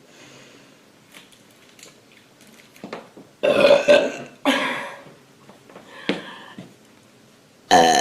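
A girl burping loudly after drinking Pepsi: four burps, the first a long one a few seconds in, a shorter one right after, a weaker one about six seconds in, and another loud one near the end.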